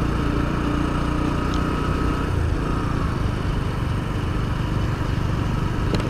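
Bajaj Discover 125 motorcycle's single-cylinder four-stroke engine running steadily at an even, moderate cruising speed, heard onboard.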